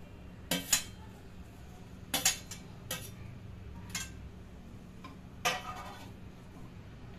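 Steel spoon clinking against a steel plate and a kadhai while chopped coriander is spooned into the curry: a handful of separate sharp taps, with a longer scrape about five and a half seconds in.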